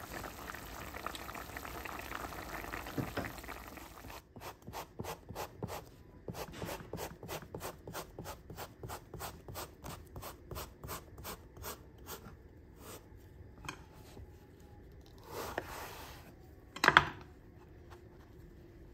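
Chicken wings simmering and bubbling in a pot, then a kitchen knife cutting fine slits into an aubergine on a wooden chopping board in quick, even strokes, about three a second. A louder knock comes near the end.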